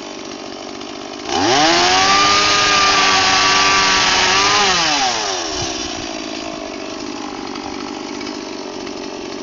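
Stihl two-stroke chainsaw idling, then revved sharply to full throttle about a second in, held there for about three seconds, and dropping back to idle.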